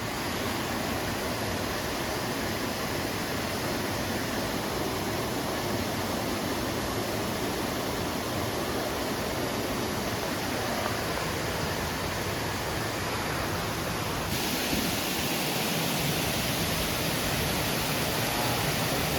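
Waterfall rushing: a steady wash of falling water, with the hiss growing brighter about fourteen seconds in.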